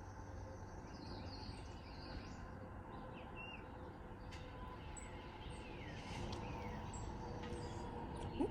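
Small wild birds chirping, with short high calls and a few falling whistles, over a steady low outdoor background hum.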